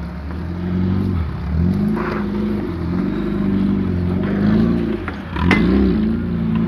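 Lada Niva's engine revving up and down several times as it crawls and lurches through deep mud ruts. A sharp knock about five and a half seconds in.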